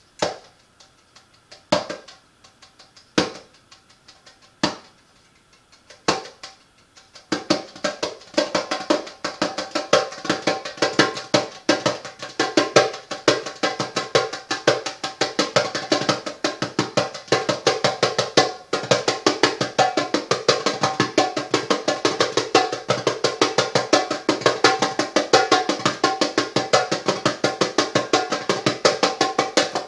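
Hand drum played with bare hands: five single, evenly spaced strikes, then from about seven seconds a fast, steady drumming rhythm with a ringing tone to each stroke.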